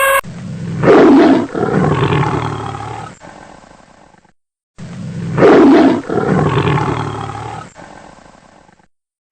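An animal's roar, played twice in a row as the same recording. Each roar lasts about four seconds, loudest near its start and then trailing off.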